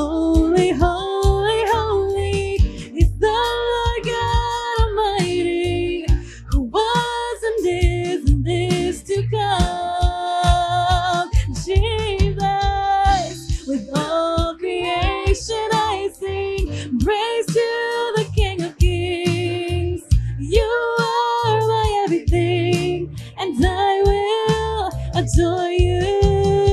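Live worship music: a woman sings a slow praise song over instrumental backing.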